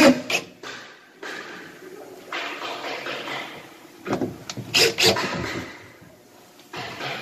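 Cordless drill driving screws into a wooden wardrobe cabinet, in runs of one to two seconds, after a sharp knock at the start.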